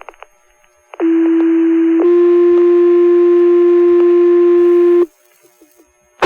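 Two-tone sequential fire-pager alert tones sent over the dispatch radio channel, which set off the volunteer firefighters' pagers for a call. A steady one-second tone is followed at once by a slightly higher three-second tone, which cuts off sharply, and a short radio burst comes at the very end.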